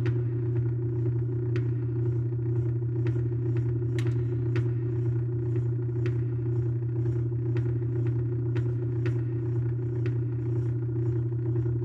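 Experimental drone music from an open grand piano being played inside on its strings: a steady low hum with light ticks about twice a second.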